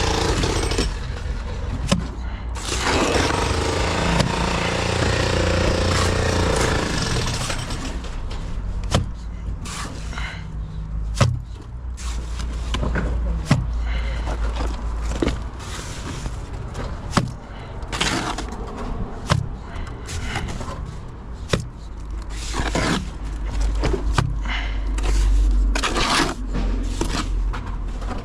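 Construction site work noise: scraping and scattered sharp knocks of tools and hard material. A loud machine runs for about the first eight seconds, and a steady low machine hum stays underneath throughout.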